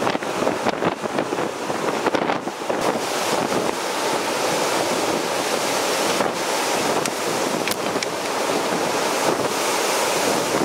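Strong wind rushing in gusts and buffeting the microphone, over choppy, storm-whipped river waves breaking into whitecaps.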